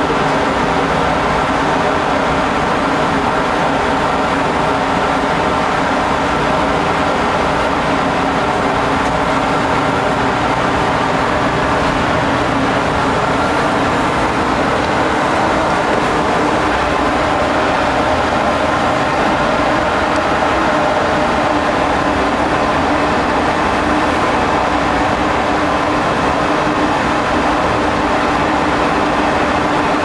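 Steady, loud drone of a ship's deck machinery, an even mechanical noise with several held hums in it.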